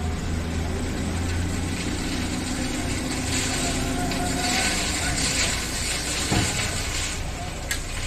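Dump truck's diesel engine running with its tipper bed raised while a load of crushed stone aggregate slides out of the bed in a loud, hissing rush from about three seconds in. The engine hum eases off around the middle, and there is a sharp knock a little past six seconds.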